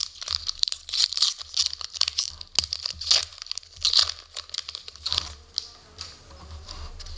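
Foil wrapper of a trading card pack being torn open and crinkled by hand: a run of irregular crackles and rips that eases off after about five seconds.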